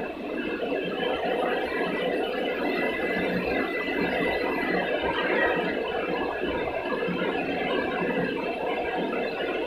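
Electric drill running continuously, used as a painting tool against a wall, with a steady whine.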